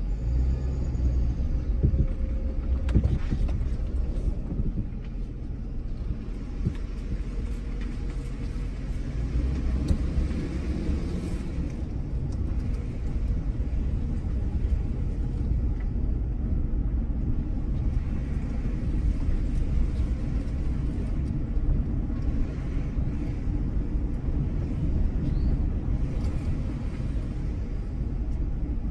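Steady low rumble of a vehicle's engine and tyres, heard from inside the cab while driving slowly.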